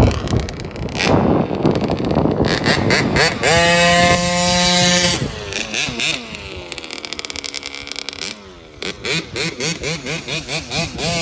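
KTM 50 mini dirt bike's two-stroke single-cylinder engine revving as it is ridden around. It is held at high revs for a second or so, then drops away and goes quieter as the bike moves off, and climbs again in short stabs of throttle near the end.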